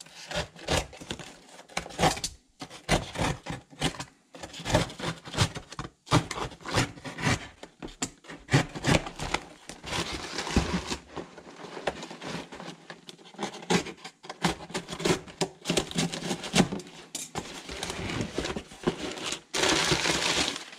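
A cardboard parcel being opened by hand: a utility knife scraping through packing tape, and cardboard flaps rubbing and knocking in an irregular run of scrapes and taps. Near the end, crumpled newspaper packing rustles as it is pulled out.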